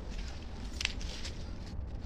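Rustling and scraping as a plastic bag of gravel is handled, with one sharper crackle a little under a second in, over a low steady rumble.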